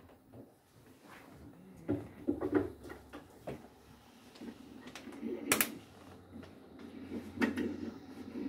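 Scattered knocks and clicks of things being handled and moved in a small room, with a sharp click about five and a half seconds in, and faint low voices now and then.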